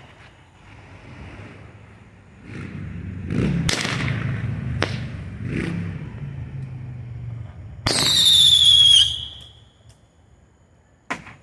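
Brothers Fireworks Crazy Aces Roman candle firing: a rush of spray and sharp shots about a second apart, then a loud high whistle about eight seconds in that lasts about a second and drops slightly in pitch, and a pop near the end.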